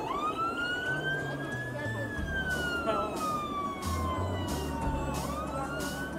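A fire-truck siren wailing: its pitch climbs for about two seconds, sinks slowly for about three, then starts climbing again near the end. Music with a bass line and a steady beat plays faintly underneath.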